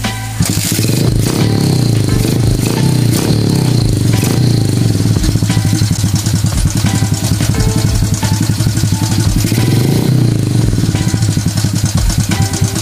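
Kawasaki Fury 125 trail bike's 125 cc engine kick-started for a test run after a new CDI and carburettor were fitted. It catches about half a second in and keeps running, the revs rising and falling while the carburettor is adjusted by hand.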